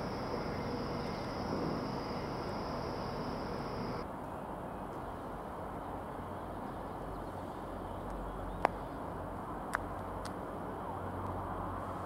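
Railway station platform background noise: a steady hum with a thin high whine that stops abruptly about four seconds in, then a low rumble building near the end and a few sharp clicks around nine to ten seconds.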